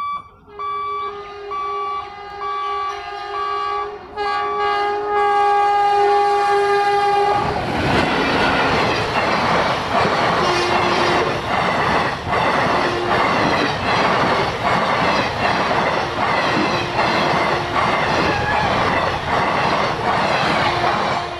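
A WAP-4 electric locomotive sounds its horn in long blasts over a pulsing beep as the train approaches. About seven and a half seconds in, the passenger coaches rush past close by: a loud rumble with a steady clatter of wheels over rail joints.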